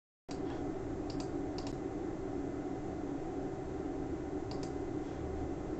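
Steady hum and hiss of an open microphone in a small room, coming in suddenly just after the start, with a handful of faint clicks from a computer mouse or keyboard.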